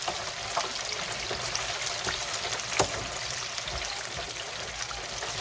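Chicken wings frying in hot oil in a deep fryer, cooked to well done: a steady crackling sizzle with fine pops, and one sharp click about three seconds in.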